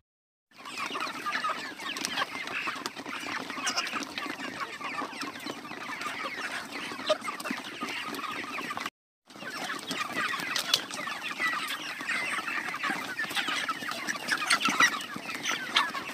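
A large flock of white broiler chickens clucking and calling all at once in a dense, continuous chatter. The farmers say the birds are short of feed. The sound drops out briefly about nine seconds in.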